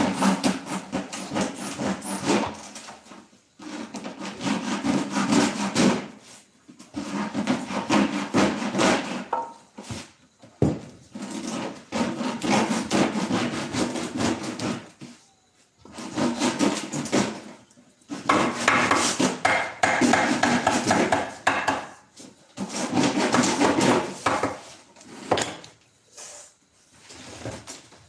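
Wood rubbing and scraping against wood as a wooden chair part is worked by hand, in bursts of a few seconds with short pauses between. A single sharp knock comes about ten seconds in.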